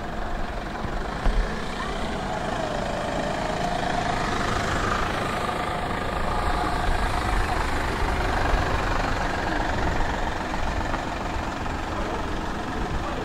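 Tram running along the track: a steady rumble of wheels on rails, with a faint whine that rises slightly about three seconds in and fades out after eight seconds.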